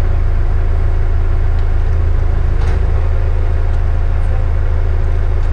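Leopard 45 catamaran's inboard diesel engines running, a steady low drone with an even throb.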